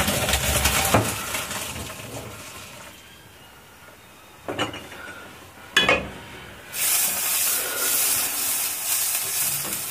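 Pot of cooked pasta drained into a stainless steel kitchen sink: hot water rushes and splashes, fading over a few seconds. The pot then knocks twice, and a steady hiss starts about seven seconds in.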